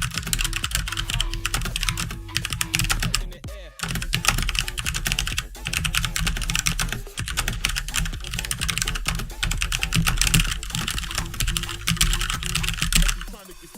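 Fast, continuous typing on a Motospeed Inflictor CK104 mechanical keyboard with Outemu red linear switches: a dense clatter of keystrokes with a few brief pauses, dying away just before the end.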